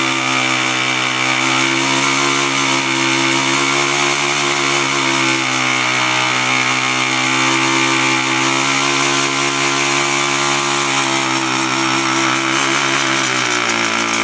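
Honda CT110 postie bike's small single-cylinder four-stroke engine held at high revs through a burnout, spinning the knobby rear tyre against the ground. The revs waver, then drop a little near the end.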